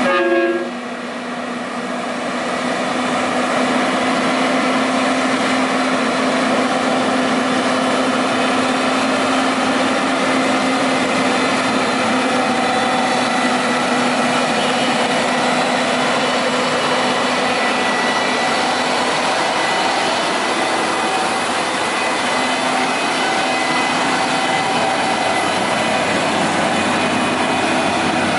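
Diesel engine of a loaded Mitsubishi Fuso logging truck running steadily.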